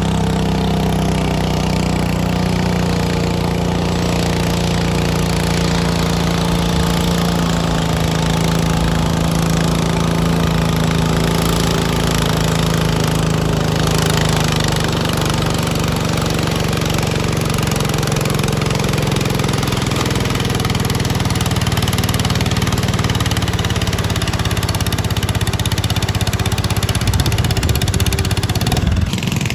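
Garden tractor engine running hard and steady under load, its pitch sagging slightly as the pull goes on. There is a brief break in the sound just before the end.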